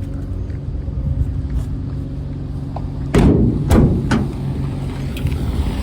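BMW 328i engine running steadily, its serpentine belt thrown off. Two heavy thuds come about three seconds in, from the hood being released and lifted.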